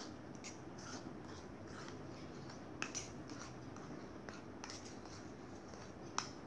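Metal spoon stirring a mixture in a ceramic bowl: faint scraping with scattered light clinks of the spoon against the bowl, the sharpest one near the end.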